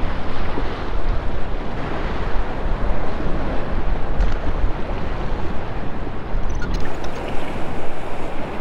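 Surf washing and breaking against the rocks of a jetty, with wind buffeting the microphone as a steady low rumble.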